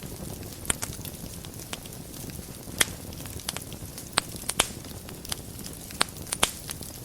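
Wood fire burning in a fireplace: a steady low rumble of flames with irregular sharp crackles and pops, the loudest about a third of the way in and several more in the second half.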